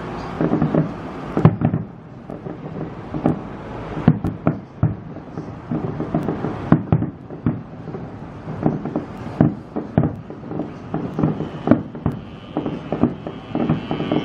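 Fireworks display going off in a rapid, irregular barrage of bangs and crackles, several a second.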